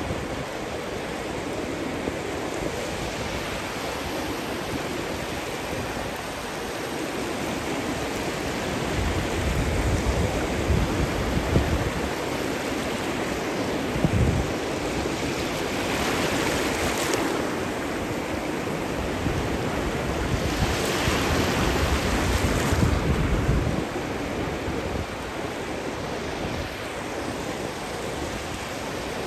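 Ocean surf breaking and washing steadily onto a sandy beach, swelling louder twice around the middle of the stretch, with gusts of wind rumbling on the microphone.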